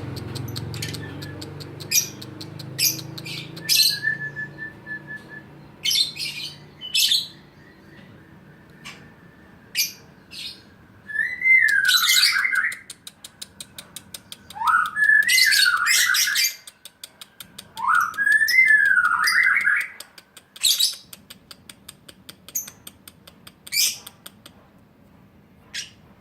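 Lovebirds calling: sharp chirps and clicks throughout, and three warbling calls of about two seconds each, rising and falling in pitch, in the middle. A low hum fades out in the first few seconds.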